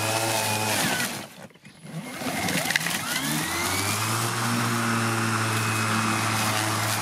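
Parkside PRMA 40-Li C1 40 V brushless cordless lawn mower, in turbo mode, running its blade at full speed. It winds down to a stop about a second in, then spins back up with a rising whine and runs steadily again from about four seconds in.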